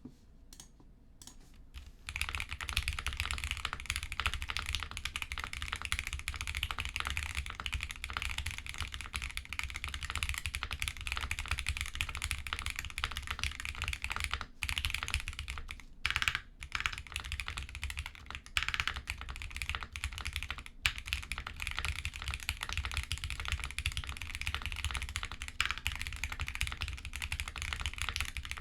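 Continuous typing on a Shortcut Studio Bridge75 mechanical keyboard with stock Gateron Oil King linear switches, a polycarbonate plate, case and plate foam, and Drop DCX doubleshot ABS keycaps, the board sitting on a desk pad. The typing starts about two seconds in, with a couple of brief pauses around the middle.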